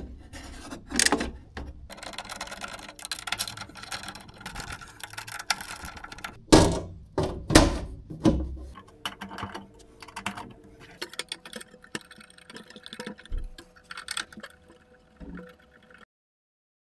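Handling noise from hands working on a digital cinema projector: scattered clicks, taps and rattles of metal parts and connectors, with two loud knocks about halfway through.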